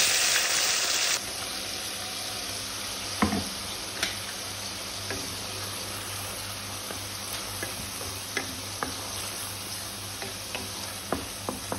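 Ginger-garlic-onion paste dropped into hot oil with whole spices in a kadhai: a loud burst of sizzling for about the first second, then a steady sizzle as it fries. Scattered taps and scrapes come from a spatula stirring it.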